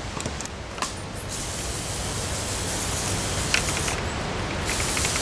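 Hand-pumped garden pressure sprayer misting neem oil solution onto a tomato plant: a steady hiss starts about a second in, eases off briefly near the end, then resumes.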